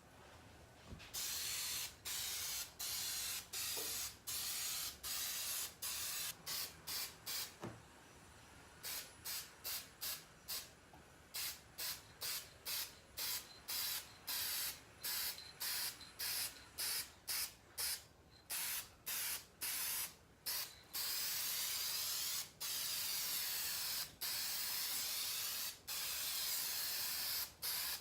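Paint being sprayed in many short hissing bursts, starting about a second in, with longer unbroken spraying near the end.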